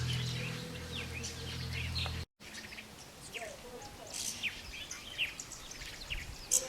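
Birds chirping: many short, high calls, several of them quick downward sweeps. A steady low hum runs underneath and stops abruptly about two seconds in.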